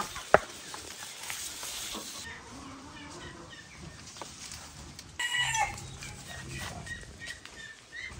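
Chickens clucking in the background, with a louder burst of calls about five seconds in. A single sharp click sounds just after the start.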